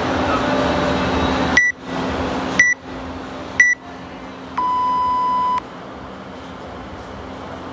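Workout interval timer counting down to the start: three short high beeps a second apart, then one long, lower beep about a second long that signals the go.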